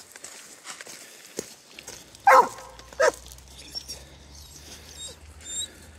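A dog barks twice, short sharp barks under a second apart, about two seconds in.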